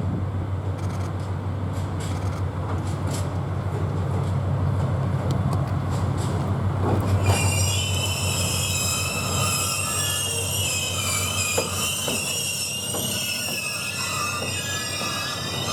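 A DF200 diesel-electric locomotive running with a steady low engine drone as its train comes in. About seven seconds in, a high-pitched squeal of several wavering tones sets in from the wheels on the rails and keeps on.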